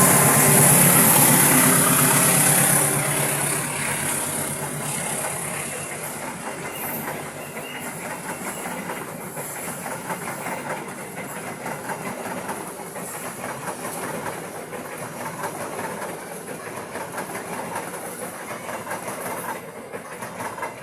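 Diesel-hauled passenger train passing close at full throttle on an upgrade: the locomotive's engine is loud for the first few seconds, then a long string of carriages rolls by with a rhythmic clickety-clack of wheels over rail joints, slowly fading.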